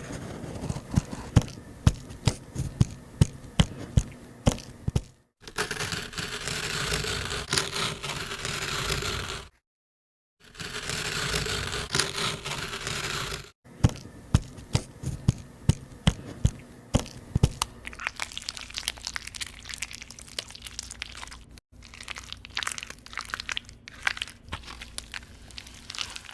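Makeup products being crushed: a run of sharp cracks and crunches in quick succession, then stretches of continuous crumbling and scraping, then more cracking. Brief dead gaps split the passages.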